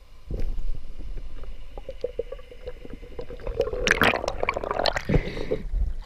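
Muffled underwater gurgling and bubbling as a swimmer lunges at a fish, then loud splashing and dripping from about four seconds in as the camera comes up out of the water.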